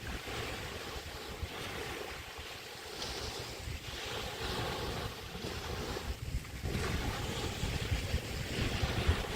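Small Chesapeake Bay waves washing onto a beach, swelling and easing in about three washes, with wind buffeting the microphone as a low rumble.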